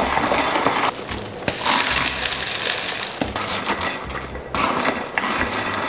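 Crushed ice rattling and clinking against the sides of a glass pitcher as a wooden spoon stirs it through a milky drink. The stirring pauses briefly twice.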